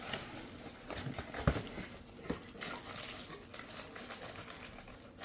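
Cardboard accessories box and its packing being handled and opened: irregular rustling with a few light knocks, the sharpest about a second and a half in.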